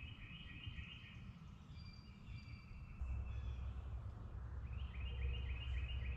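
A songbird singing a phrase of about six quick repeated high notes, once at the start and again near the end, over a low rumble that grows louder about halfway through.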